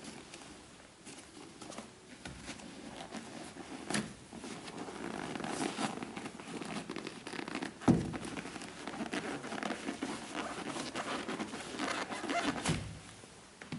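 Hands handling an Air Jordan 11 sneaker: rustling and rubbing of the shoe's upper and laces, with three knocks, the loudest about eight seconds in. Near the end the insole is pulled up out of the shoe.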